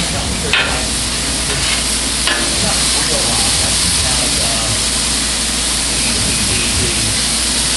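Fresh-ground beef burger patties frying with a steady sizzle on a Blackstone steel flat-top griddle. A metal spatula clacks sharply on the steel twice, about half a second and two seconds in, as the patties are flipped.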